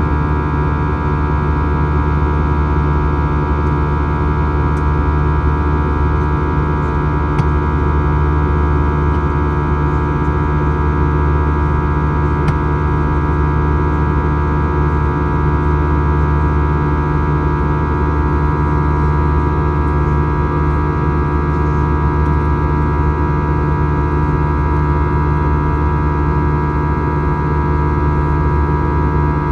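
Steady airliner cabin drone inside an Airbus A321: the hum of its CFM engines and rushing air, with several steady whining tones over a deep low rumble, unchanging throughout. A few faint ticks sound over it.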